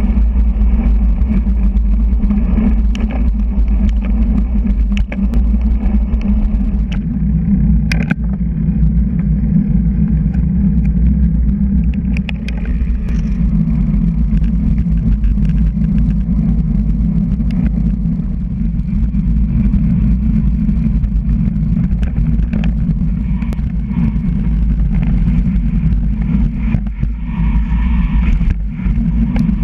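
Wind buffeting the microphone of a handlebar-mounted action camera on a moving road bike: a loud, steady low rumble, with a few short clicks and rattles as the bike goes over the road surface.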